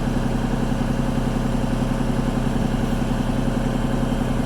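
Engine of heavy earthmoving equipment idling steadily.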